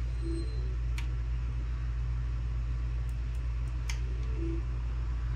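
Steady low hum with one sharp click about a second in and a few fainter clicks around three to four seconds in.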